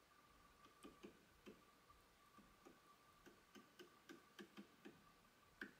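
Faint clicks of an Original Prusa MK3S LCD panel's rotary knob being turned through its detents. A few scattered clicks come first, then a quicker run of about three or four a second near the end.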